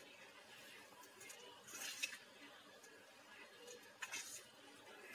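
Faint swishing and scraping of a steel ladle stirring thickened amchur chutney in a steel kadhai, with a light clink of metal on metal about two seconds in.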